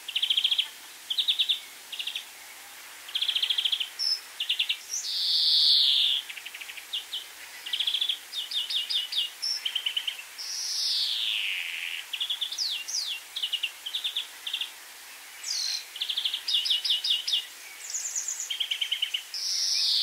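Eurasian siskin song: fast twittering trills broken three times by a long, falling, wheezy note.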